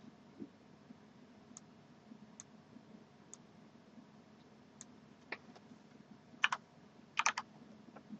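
Faint, scattered clicks of a computer keyboard and mouse: a few single clicks spaced about a second apart, then a quick run of three or four keystrokes near the end.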